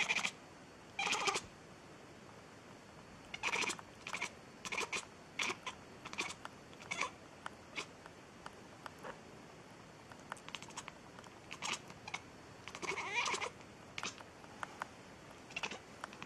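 A white cat vocalising in a string of short, broken meows and chirps, spaced irregularly, with a longer meow about thirteen seconds in.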